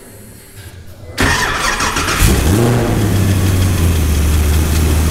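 Supercharged LS3 V8 (6.2-litre GM small-block with an LSA supercharger) cranking and firing up about a second in, its revs flaring briefly, then settling into a steady idle.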